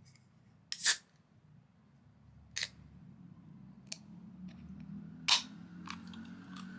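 Aluminium soda can being opened by its pull tab: a sharp pop with a brief hiss of carbonation about a second in, then a few smaller clicks of the tab, and another loud sharp click about five seconds in.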